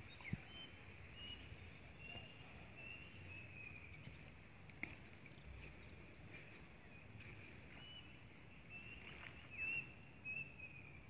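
Outdoor ambience: a steady high insect drone, with short bird chirps repeating throughout and a few faint clicks.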